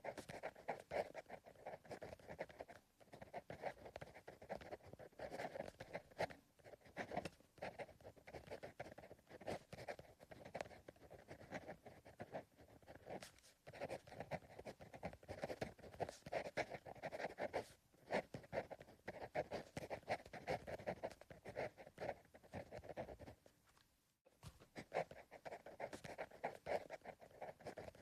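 Pencil writing on paper: quick scratchy strokes in continuous runs, broken by brief pauses and one longer gap about 24 seconds in.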